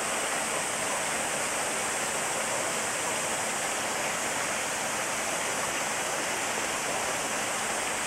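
Steady rushing of running water, an even hiss that does not change.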